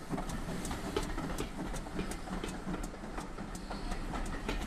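GWR 4500 class small prairie tank locomotive 4566 passing slowly at close range: a steady low rumble with sharp clicks coming about two to three times a second.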